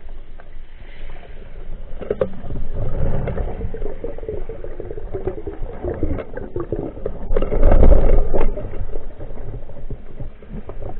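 Underwater sound picked up by a speargun-mounted camera: water rushing and gurgling past the housing as the diver swims, with scattered knocks and clicks. It swells to its loudest for about a second late on.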